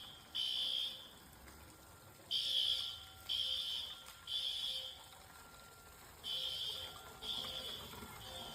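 Smoke alarm beeping in its three-beep evacuation pattern: high-pitched beeps about a second apart in groups of three, with a short pause between groups.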